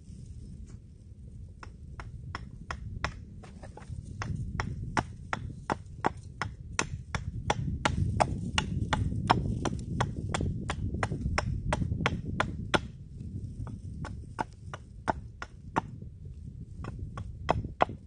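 Hatchet chopping a piece of wood on a log table: sharp knocks come steadily, about two to three a second, starting a second or two in.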